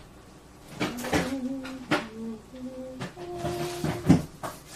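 Several sharp knocks and clatter, the loudest about four seconds in, with a simple tune of short held notes that step up and down in pitch.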